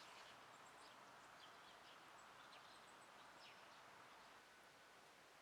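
Faint outdoor hush with scattered high, short chirps of small birds, mostly in the first three seconds.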